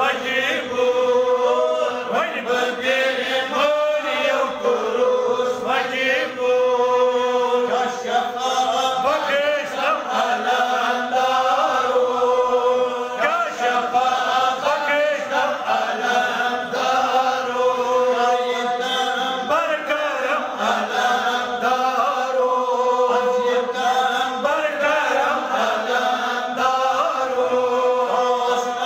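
Islamic devotional chanting: voices sing a continuous melodic chant over a steady held note.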